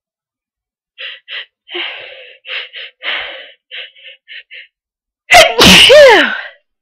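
A person's sneeze. A run of about a dozen short, catching in-breaths comes in quick succession, then about five seconds in a sudden, very loud sneeze whose pitch falls away.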